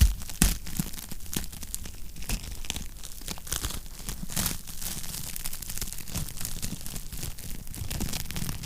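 Wood fire in a fireplace crackling and popping steadily over a low rumble of the flames, with a sharp pop at the start and another about half a second in.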